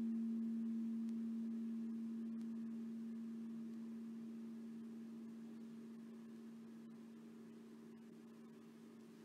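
A meditation bell's single low tone ringing out and slowly fading, struck just before. It marks a period of eyes-closed meditation.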